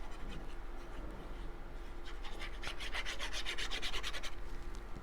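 Quick back-and-forth rubbing strokes on cardstock as a glued paper piece is pressed and rubbed down, thickest and loudest from about halfway to near the end.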